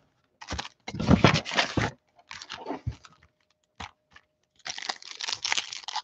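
A cardboard box of trading-card packs being opened, with cardboard scraping and tearing in a few short bursts. After a couple of sharp clicks, the foil card packs crinkle steadily as they are handled, from about four and a half seconds in.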